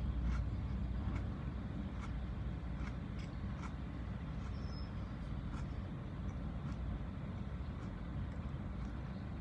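Steady low rumble inside a car's cabin, with faint scattered clicks from chewing a mouthful of crackers.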